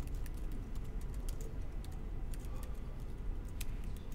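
Typing on a MacBook laptop keyboard: irregular key clicks as a command is entered in a terminal, over a low steady room hum.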